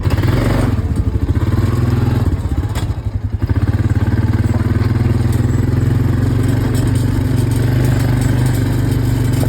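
Engine of a farm vehicle running steadily while it drives, with a brief drop in level about two and a half seconds in before it settles back to a steady run.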